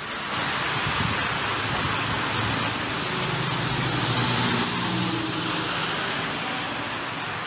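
Steady outdoor background hiss with a faint low hum underneath.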